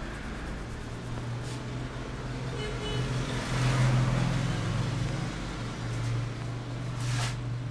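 Road traffic passing: a motor vehicle's low engine hum swelling to its loudest about halfway through, with a short burst of hiss near the end.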